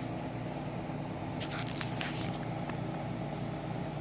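Air conditioner running with a steady hum. A brief cluster of clicks and rustles comes about a second and a half in.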